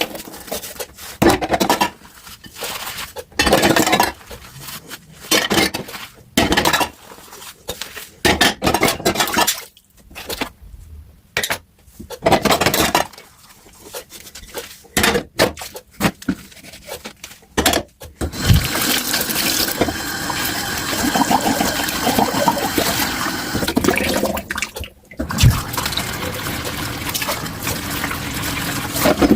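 Dishes and cutlery clattering and clinking in a kitchen sink in short, separate knocks. About two-thirds of the way in a tap starts running steadily, with one brief break a few seconds before the end.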